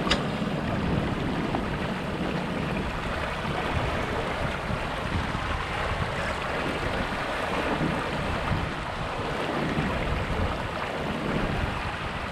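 Water rushing along the hull of a Flying Scot sailing dinghy under way, with wind buffeting the microphone. A single sharp click right at the start.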